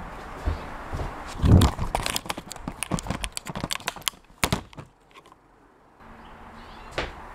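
Handling noise of a small camera being picked up, moved and set down: a heavy thump, then a quick irregular run of clicks and knocks, cutting off suddenly near the end.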